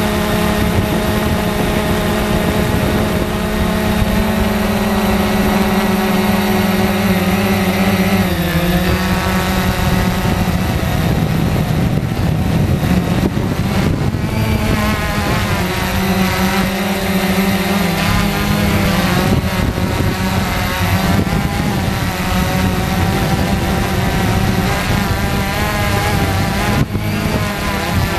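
Quanum Nova quadcopter's brushless motors and propellers whirring in flight, heard close up from a camera on the drone. The hum wavers in pitch and drops about eight seconds in and again near eighteen seconds as the motors change speed.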